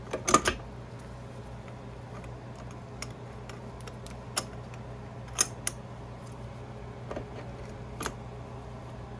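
Metal clicks and clinks of a transmission synchronizer and shift fork being slid down onto the main shaft and settled in place: a quick cluster just after the start, then scattered single clicks. A steady fan hum runs underneath.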